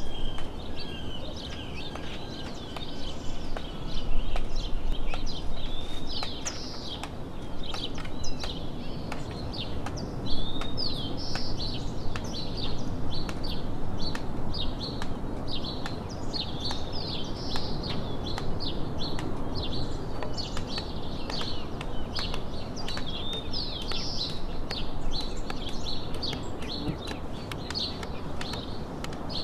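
Many birds chirping and singing without a break, over a low outdoor hum, with scattered sharp knocks and chops of hand tools: a hoe striking soil and a machete cutting bamboo.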